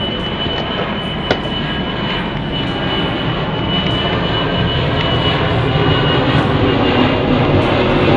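An airliner's engines on landing approach, a steady rushing noise that slowly grows louder as the aircraft nears, with a thin steady high whine running through it.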